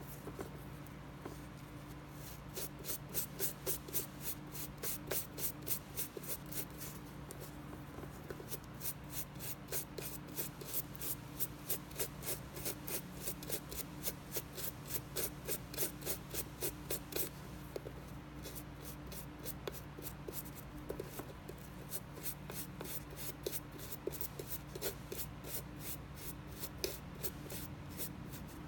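Toothbrush bristles scrubbing frayed paracord strands in quick repeated strokes, about three a second, combing the fibres out into a fluffy tassel. The brushing stops for a couple of seconds a little past the middle, then resumes.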